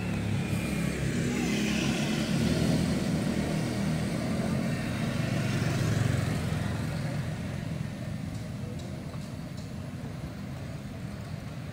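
A road vehicle passing: a low engine and tyre rumble that swells over the first few seconds and fades away after about seven seconds.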